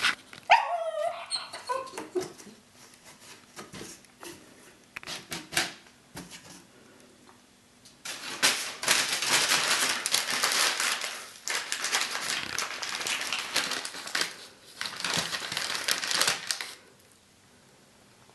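A dog pawing and nosing crumpled brown packing paper, making long stretches of rustling and crinkling, with a short high whine near the start.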